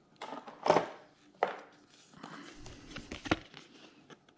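Packaging being handled on a wooden table while a printed card is taken out: three sharp knocks, the first two close together and a third near the end, with soft rustling in between.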